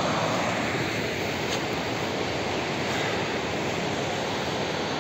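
Steady rushing of a mountain river's rapids over boulders.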